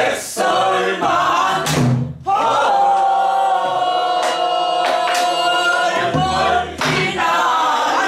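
A group of voices singing a Korean pansori danga together, with one long held note through the middle. A few sharp strokes on buk barrel drums mark the rhythm.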